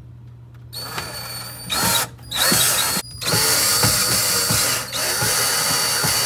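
Cordless drill driving a mounting bolt down through the cabinet floor into an over-the-range microwave's top plate, drawing the microwave up tight against the cabinet. It runs in a few short bursts, stops briefly about three seconds in, then runs steadily for a long stretch.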